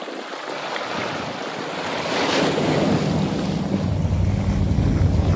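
Seawater sloshing and lapping over rocks, joined about halfway through by a steady low rumble that grows louder.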